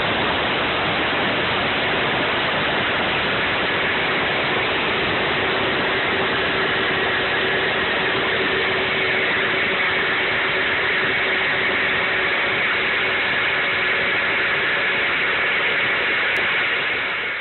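A Nutribullet blender with its milling blade running steadily, grinding hard winter wheat berries into flour. Its sound falls away near the end as the motor stops.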